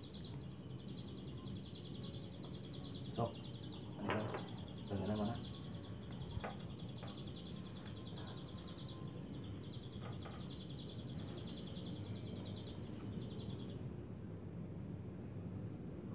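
A high, dense, continuous chirping trill of night insects such as crickets, which stops abruptly about fourteen seconds in. A few short murmurs of voice come about three to five seconds in.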